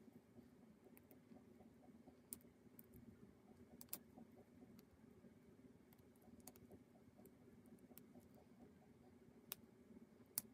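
Near silence: a low steady hum with a few faint, sharp clicks scattered through it.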